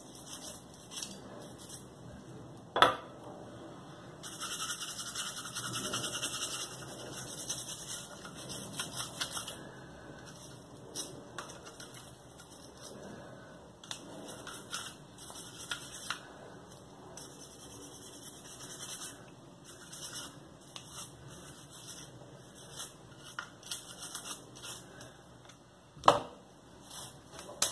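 Pistol slide and frame being scrubbed and wiped by hand during cleaning, a run of scratchy rubbing with a longer hissing stretch about four to ten seconds in. Two sharp metal clacks stand out, about three seconds in and near the end.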